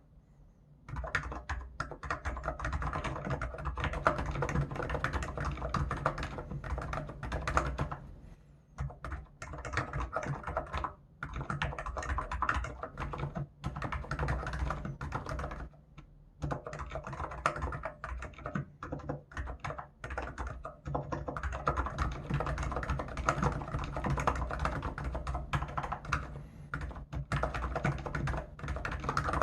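Hansung GK989B Office Master capacitive (contactless-switch) keyboard being typed on in fast continuous runs of keystrokes, starting about a second in, with short pauses every few seconds.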